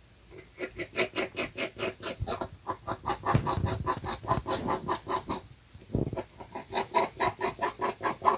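An animal's rapid, rhythmic chattering call, about five pulses a second, in two bouts with a short break just past the middle.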